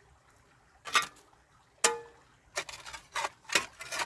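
Spade and stones knocking together while digging and wedging rocks: five sharp knocks, the second, about two seconds in, with a brief metallic ring.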